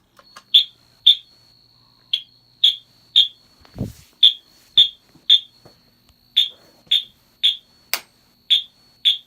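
Fire alarm horn sounding a temporal-three evacuation pattern: short, loud, high-pitched blasts about half a second apart in groups of three, with a longer pause between groups, over a faint steady high tone. A dull thump about four seconds in.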